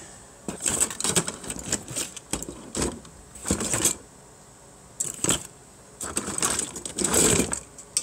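Spare plastic computer fans and their wires clattering and rustling as a hand rummages through a cardboard box of them, in irregular bursts of clicks and knocks with short pauses.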